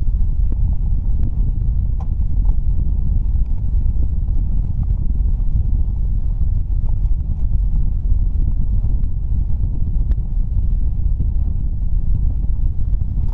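Heavy wind buffeting the microphone: a steady, loud low rumble, with a few faint ticks.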